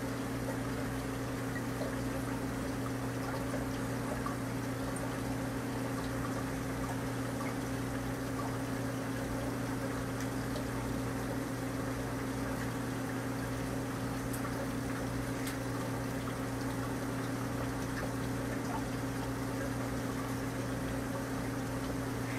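Recirculating aquarium system running: water pouring and trickling steadily into the tanks, with a steady low hum underneath.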